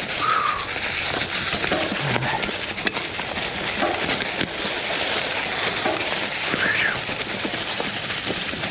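Mountain bike rolling fast down a dirt trail covered in fallen leaves: a steady rush of tyre and leaf noise with the bike's frame and parts rattling and knocking over bumps. Two brief high squeaks come through, one just after the start and one near the end.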